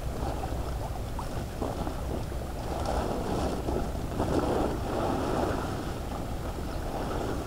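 Water splashing and dripping as a wet cloth fish-trap net is hauled out of a shallow flooded ditch and pushed into a woven plastic sack, with the sack rustling. It is loudest around the middle, over a low steady rumble of wind on the microphone.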